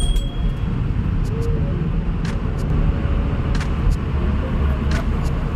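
Road and engine noise heard from inside a moving car's cabin: a steady low rumble, with a few light clicks scattered through it.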